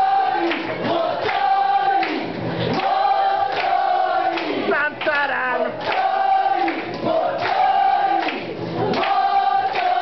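A man and a woman singing into microphones, joined by a group of voices, in short repeated phrases of held notes.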